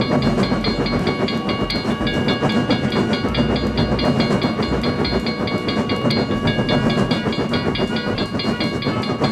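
Animated train sound effect: a train running, with a fast, even clicking rhythm over steady high ringing tones.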